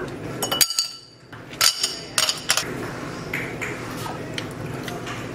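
Ice cubes clinking into a glass: a run of sharp glassy clinks with a brief ringing tone, bunched in the first three seconds.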